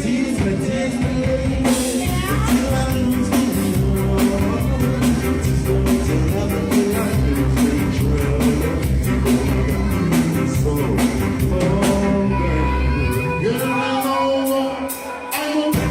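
Live reggae band with singing over bass, drums and guitar. Near the end the bass and drums drop out for about two seconds, then the full band comes back in.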